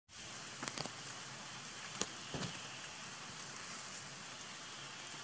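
Steady hiss of rain and dripping water, with a few sharp ticks in the first two and a half seconds.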